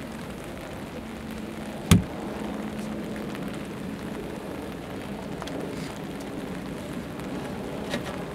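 Earth being thrown onto a coffin in an open grave: a steady noise of falling soil, with one sharp thud about two seconds in.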